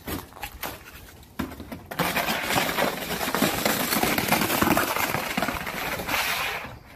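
A dog shoving a round black disc over icy, crusted snow and pavement: a few scattered knocks at first, then from about two seconds in a dense run of scraping and crunching that fades out near the end.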